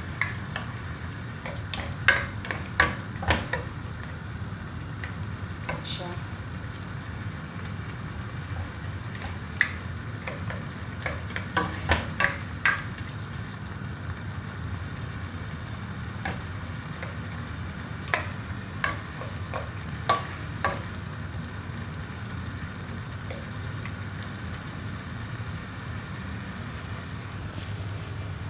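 Thick sweet-and-sour sauce with carrot strips bubbling as it cooks in a pot while a spoon stirs it. The spoon knocks against the pot now and then, in short clusters a couple of seconds in, near the middle, and about two-thirds through; these knocks are the loudest sounds.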